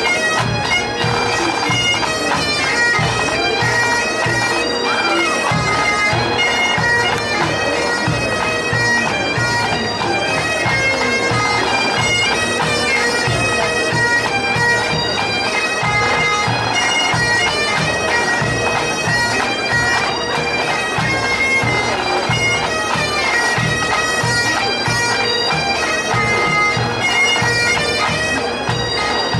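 Highland bagpipes playing a tune over their unbroken steady drone.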